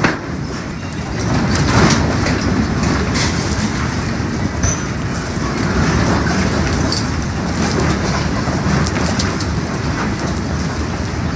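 Building shaking in an earthquake: a continuous loud rumble with scattered rattling and knocking.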